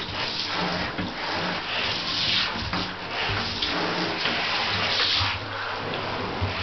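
Water running and splashing into a bathtub, with a steady low hum underneath.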